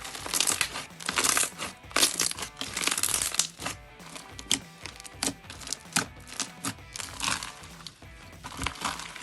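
Background music with irregular crackling, crinkling noises over it.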